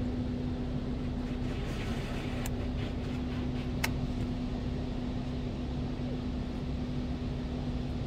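Steady rumble and hum of automatic tunnel car wash machinery, heard from inside the car's cabin. A brief hiss comes about two seconds in, and two sharp clicks fall near the middle.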